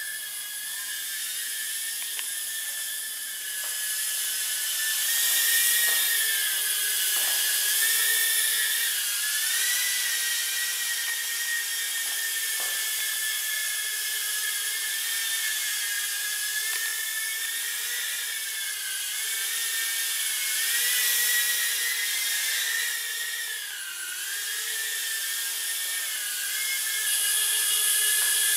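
Makerfire micro FPV ducted-fan racing quadcopter in flight: its tiny motors and ducted propellers give a high-pitched whine whose pitch rises and dips as the throttle is worked.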